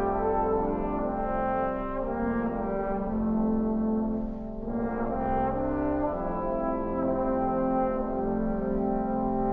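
Trombone choir playing held chords that shift every second or two, with a brief dip in level about four and a half seconds in before the chords swell again.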